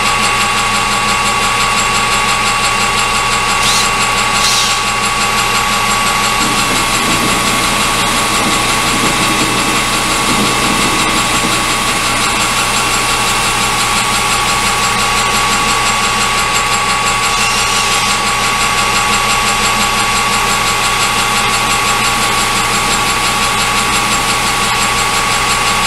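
Metal lathe running steadily while taking a taper-turning cut on a steel Morse taper arbor, with a constant mechanical whine.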